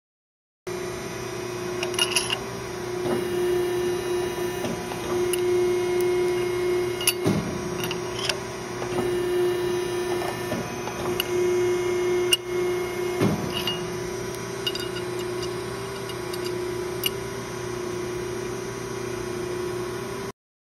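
Edwards hydraulic ironworker running with a steady hum from its pump while a mandrel punch is worked through steel U-bar. Sharp clicks and knocks come several times, and twice the hum sweeps briefly down in pitch as the punch takes load.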